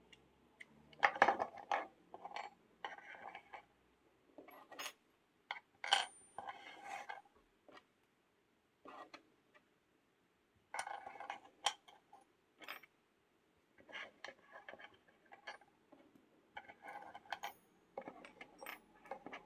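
Small steel lino-cutter blades clinking and clicking as they are swapped in and out of a lino cutter's handle and laid down, in irregular clusters of light metallic taps with short pauses between.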